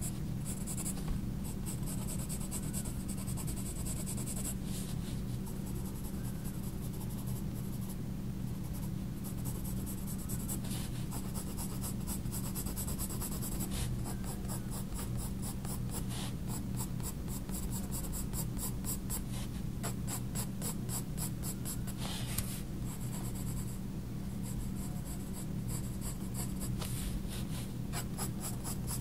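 Faber-Castell Polychromos coloured pencil scratching on Talens Art Creation sketchbook paper in runs of quick, short shading strokes, several a second, over a steady low hum.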